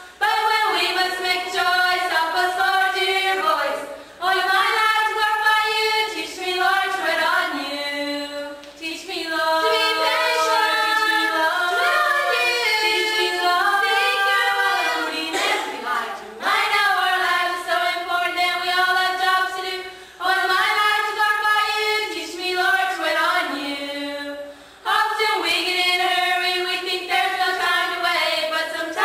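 Four girls singing together a cappella, in sung phrases a few seconds long with short pauses for breath between them.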